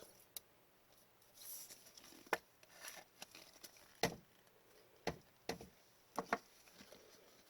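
Trading cards being handled on a table: scattered sharp clicks and taps at irregular intervals, with a couple of soft rustles.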